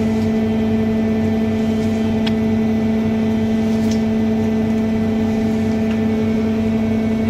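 Steady hum of the plastic egg-crate moulding machinery, running with a constant low tone and its overtones. A few light clicks from the stacked plastic crates being handled.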